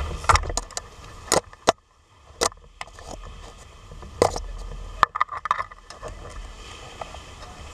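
Rough surf and surge washing over reef rock, heard through a camera's underwater housing, broken by a series of sharp knocks and slaps as the water and rock jolt the housing. About eight sharp knocks come at uneven spacing, and the wash dips briefly about two seconds in.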